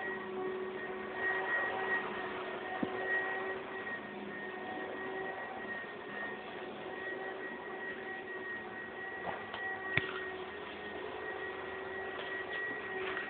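Aquarium pump running with a steady hum of a few constant tones over a hiss, with one sharp click about ten seconds in.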